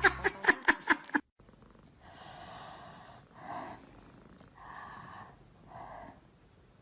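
A cat's faint, breathy snorts, four short puffs about a second apart, after a loud laughing clip breaks off about a second in.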